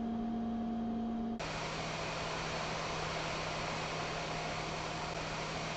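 A steady electrical hum, cut off suddenly about a second and a half in by the even rushing hiss of a hot air rework station's blower, with a low steady hum under it. The station is heating the flux-coated amplifier chips for removal.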